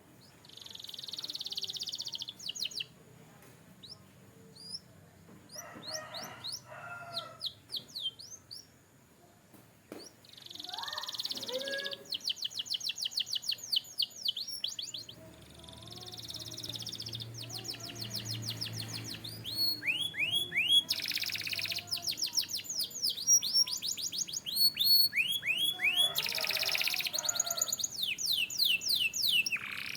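Domestic canary singing: fast trills of rapidly repeated chirps alternating with buzzy rolls. The song is broken in the first seconds and becomes louder and almost continuous in the second half.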